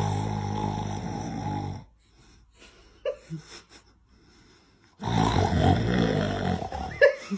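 A man snoring: a long snore that stops about two seconds in, then a second long snore starting about five seconds in, with a few short small sounds in the pause between them.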